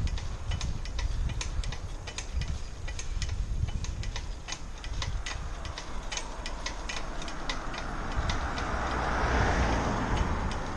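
Riding a bicycle with wind buffeting the camera microphone as a low rumble, while the bike and camera mount rattle with irregular clicks over the road surface. A hiss swells and fades near the end.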